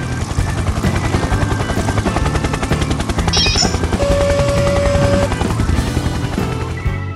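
Background music with a fast, rattling machine-like sound effect, a rapid run of pulses like a cartoon engine running, through the whole stretch.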